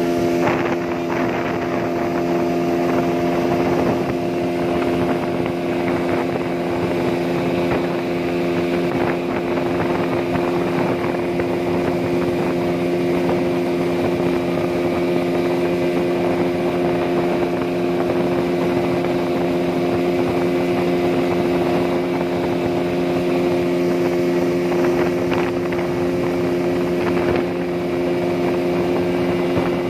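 Engine of a fully loaded passenger speedboat running at high speed with a steady, unchanging note, over a constant rushing noise.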